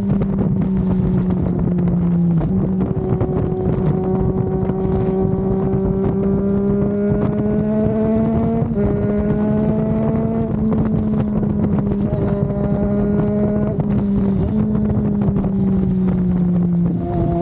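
Triumph Daytona 660's inline three-cylinder engine running steadily under way, its pitch slowly climbing and then stepping abruptly a few times, with wind rushing over the microphone.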